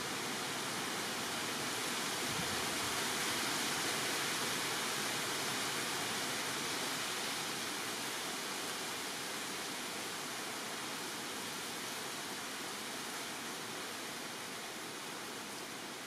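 A steady, even rushing hiss with no calls or knocks in it. It swells a little over the first few seconds, then slowly eases off.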